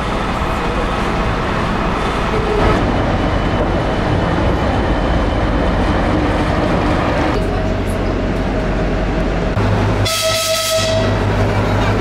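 Narrow-gauge train running at a station platform, a steady rumble, with a short horn blast lasting about a second near the end.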